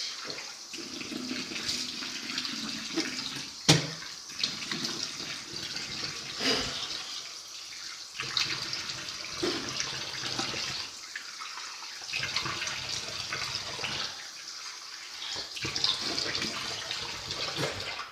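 Bathroom sink tap running while water is scooped and splashed onto a face to rinse off face wash, with irregular louder splashes. A sharp knock comes about four seconds in.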